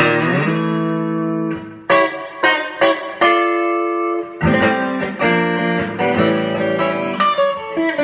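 Fender Stratocaster electric guitar on its middle pickup, a Texas Special single-coil, played through a 5F4 amp with a little compression and reverb. A chord is struck at the start and rings for about a second and a half, then a steady run of picked notes and chords follows.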